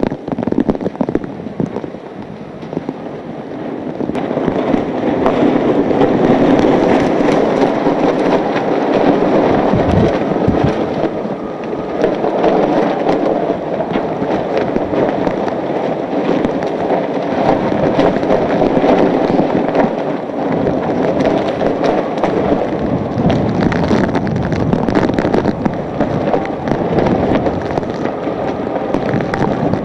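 Hurricane Katrina's wind blowing hard with rain, full of rapid crackling and flapping. It builds over the first few seconds and then stays loud.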